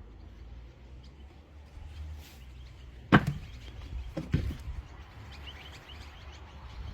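A single sharp knock about three seconds in, then two lighter knocks close together about a second later, over a low rumble.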